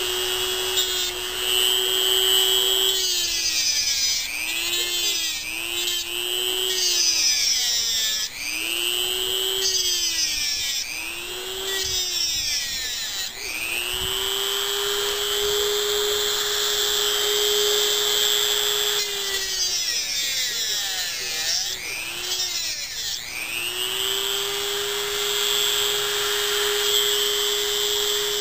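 Dremel rotary tool cutting through a lithium polymer pack's circuit board and cell tabs. It runs with a steady whine, and the pitch dips again and again as it bites in, then holds steady when it runs free.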